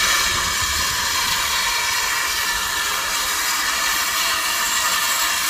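Steam locomotive letting off steam: a loud, steady hiss of escaping steam.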